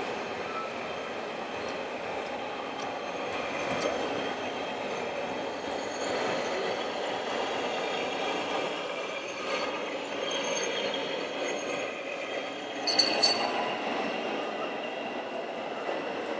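Steady din of a busy exhibition hall full of running radio-controlled model trucks and excavators, with short high whines from small electric motors now and then. A brief sharp clatter about thirteen seconds in.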